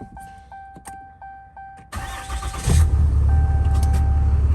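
A steady electronic tone ticks about three times a second. About two seconds in, the starter cranks and the 2021 Ram 2500's 6.7-litre Cummins inline-six turbo diesel fires and settles into a steady, deep idle. This is the first start on fresh oil after the oil change.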